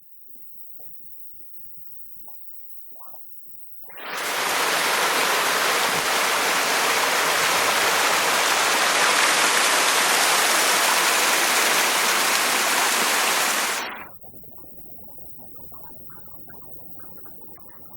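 Loud, steady rush of falling water from a 22 m waterfall, coming in abruptly about four seconds in and cutting off about ten seconds later, leaving only a faint rush.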